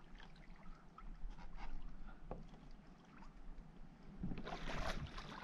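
Water splashing and lapping against a paddleboard, with small drips and clicks, then a louder burst of splashing near the end as the hooked tarpon stirs the surface beside the board.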